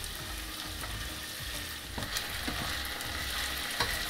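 Diced potatoes and onions sizzling as they fry in a non-stick saucepan, a steady hiss. A few light knocks and scrapes come as the potatoes are tipped in and stirred with a plastic spatula.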